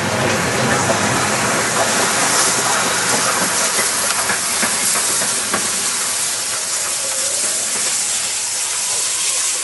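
Steam locomotive 03 2204-0, a German class 03 Pacific, running on light engine with a loud, steady hiss of steam from its open cylinder drain cocks, a few faint knocks from the wheels on the rail joints beneath it.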